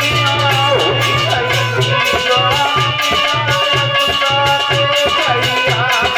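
Instrumental interlude of a Hindi devotional bhajan: held melodic tones and a wandering melody line over a steady, rhythmic drum beat with light percussion strokes.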